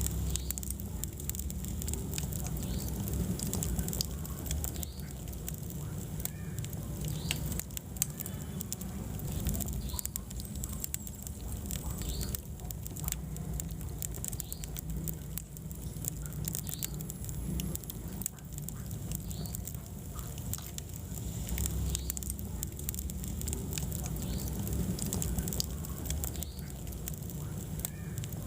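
Wood fire burning in a fireplace: a steady low rumble of flames under frequent sharp crackles and pops, with small hisses from the burning wood.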